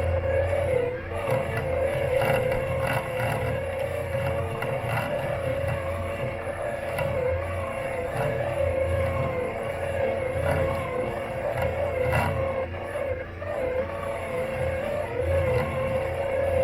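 Robot lawn mower running at very close range: a steady, slightly wavering motor whine over a low hum that swells and fades, with a few faint clicks and knocks.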